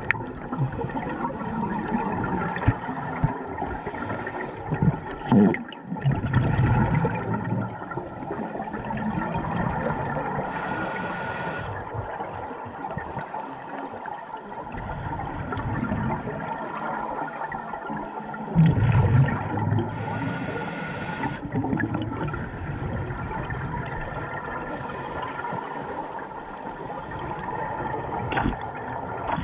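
Scuba diver breathing through a regulator underwater: a couple of hissing inhalations about ten seconds apart and the gurgling rumble of exhaled bubbles, over a steady underwater rush.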